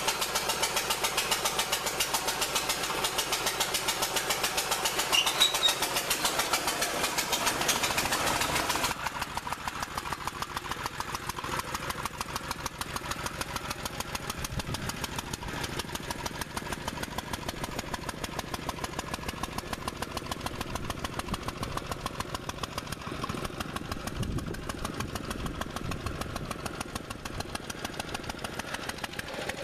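Standard Monarch garden tractor's engine running with a quick, even firing beat. About nine seconds in the sound drops sharply and thins out, heard from farther off as the tractor is driven away.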